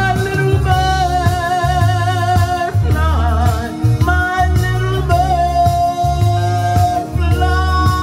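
A man singing into a microphone, holding long notes with a wavering vibrato, over a backing track with a deep, repeating bass line.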